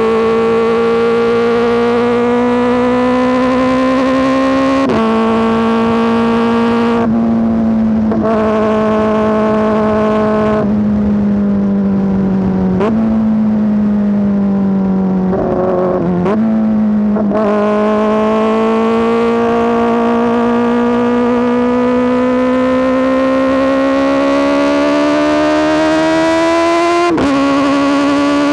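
Kawasaki ZX-4RR's inline-four engine through an SC Project S1 exhaust under way. It climbs in pitch with an upshift about five seconds in, then eases off and falls in pitch, with two quick upward jumps in the middle as it is downshifted. It then makes a long climb and drops with another upshift near the end.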